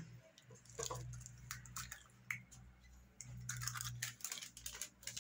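Faint gritty rustling of hands rubbing coarse semolina in a glass bowl, with a few short sharp clicks as an egg is cracked into it.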